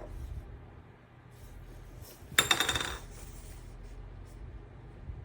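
A brief clatter of small hard objects, rattling and ringing for about half a second, about two and a half seconds in.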